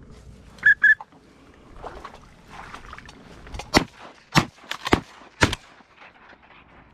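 A quick string of shotgun shots at passing ducks, four or five sharp reports under a second apart, the first the loudest. Two short high call notes come near the start.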